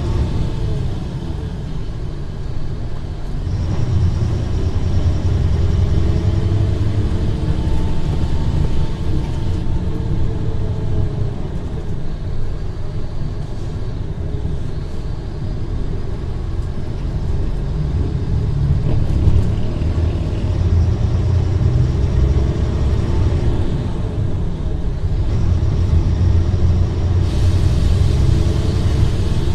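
Mercedes-Benz O500R BlueTec 5 bus's diesel engine running while driving. It makes a deep, steady rumble that swells about 4 seconds in, eases off in the middle and swells again later, with faint rising and falling pitch as the revs change.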